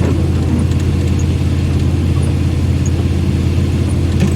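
Steady low drone of a car's engine and road noise, heard from inside the cabin while driving.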